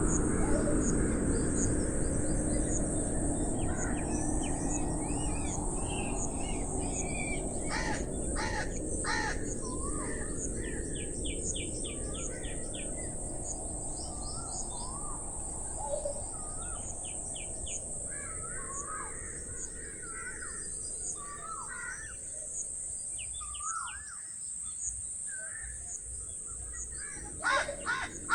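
Rural morning birdsong: small birds chirping throughout, with crows cawing a few times about a third of the way in and again near the end. Under it runs a steady high insect drone and a low rushing noise that slowly fades.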